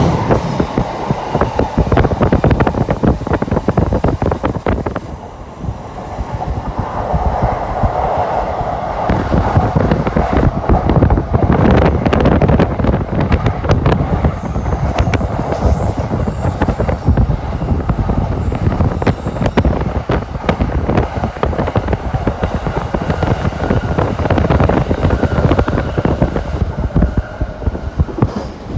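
N700S Shinkansen train running past: steady rolling noise of wheels on rail, with many rapid clicks, dipping briefly about five seconds in.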